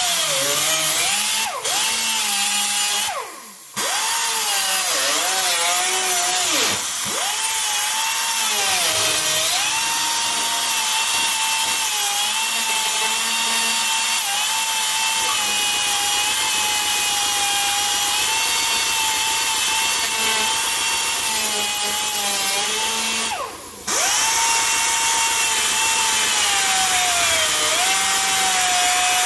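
Air grinder with a worn-down cutting disc, run at low speed, cutting sheet-steel trunk floor. It makes a steady whine over a hiss, its pitch sagging now and then, and cuts out briefly about three seconds in and again about 23 seconds in.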